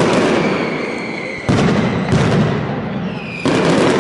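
Mascletà firecracker barrage: a dense, unbroken crackle of loud bangs. Fresh heavy volleys come in suddenly about a second and a half in, again just after two seconds, and near the end, each dying away into crackling.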